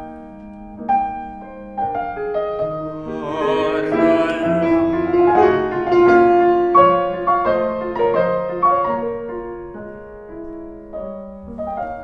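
Steinway grand piano playing a slow, lyrical classical passage, a melody over chords. About three seconds in, a voice briefly sings along with the melody.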